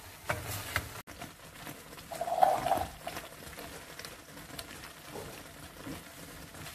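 A spoon scrapes and stirs thick creamy chicken filling in an oven dish, then, after a cut, the thick sauce simmers. About two seconds in a bubble bursts with a short low glug, the loudest sound, followed by faint scattered pops.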